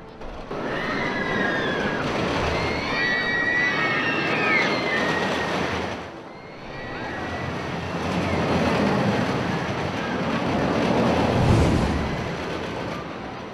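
Amusement-park ride noise: a steady rumble of ride machinery, with high gliding squeals between one and five seconds in. It dips briefly around six seconds, then swells into a louder low rumble near the end.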